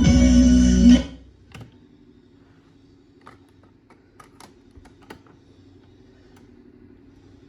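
A song playing from an FM stereo tuner cuts off abruptly about a second in. What follows is a faint low hum and a scattered series of light clicks.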